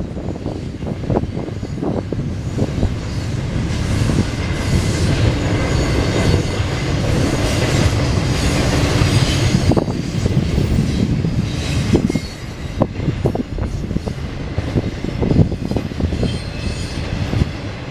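Freight train rolling past: a steady rumble of wheels on rail with repeated clicks and knocks over rail joints, and high flange squeal now and then.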